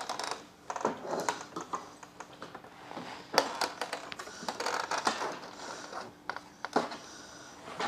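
Plastic laser printer being handled and slid into a wooden cart, its case knocking and scraping against the wooden frame in a string of light clacks and rubs, with one sharper knock about three and a half seconds in.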